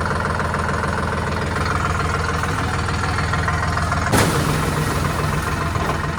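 An engine running steadily. About four seconds in there is one sharp knock, and the engine's low note shifts slightly afterwards.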